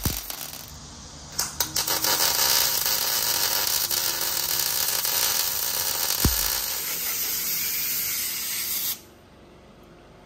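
MIG welder's arc crackling and hissing steadily. It strikes about a second and a half in and cuts off suddenly near the end, with one dull knock about six seconds in.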